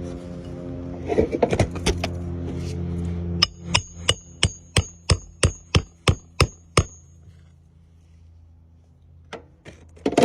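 Hammer driving roofing nails into a replacement asphalt shingle: a few quick irregular knocks, then about a dozen even blows, roughly three a second, with a metallic ring.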